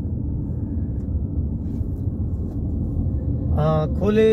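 Steady low rumble of a moving vehicle's engine and tyres on the road. A man starts speaking near the end.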